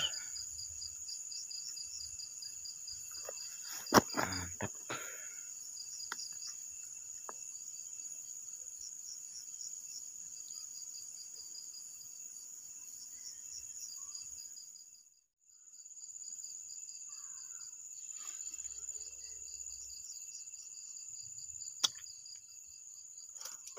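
Crickets chirping at night: a steady high-pitched trill with a fast pulsed chirping under it, breaking off briefly about two-thirds of the way through. A sharp knock about four seconds in.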